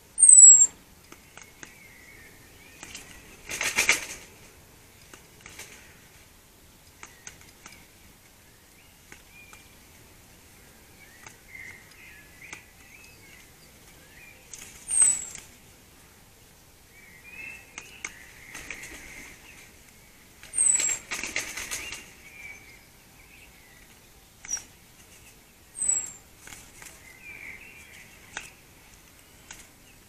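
Garden birds: a small bird gives sharp, high, falling whistle notes five times, with softer distant birdsong between them. Twice there is a brief rough rustle or flutter, like wings flapping.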